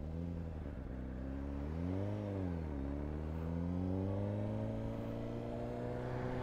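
Honda CBR600RR's 600 cc inline-four engine pulling away under acceleration. The revs rise and fall about two seconds in, then climb slowly and steadily.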